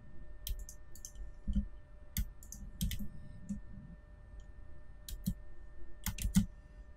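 Faint, irregular clicks of a computer mouse and keyboard keys being pressed, some in quick pairs, with a cluster of several clicks near the end.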